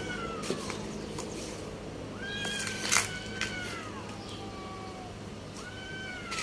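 Cat meowing: long high meows that rise and then fall in pitch, three in all, the first trailing off at the start and the last beginning near the end. A sharp click about three seconds in is the loudest moment.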